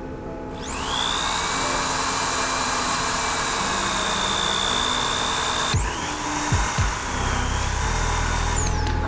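High-speed handheld power tool working on the boat's fiberglass seat, with a high-pitched motor whine over a gritty cutting noise. It spins up about a second in, runs steadily for about five seconds, cuts out briefly, restarts for about three more seconds, then winds down near the end.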